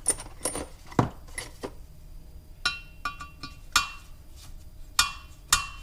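Steel engine valve being worked up and down in its guide in a bare cylinder head: a string of sharp, irregular metallic clinks, each ringing briefly as the valve knocks against its seat. This is a check for sticking or play in the guide, and the valve moves freely.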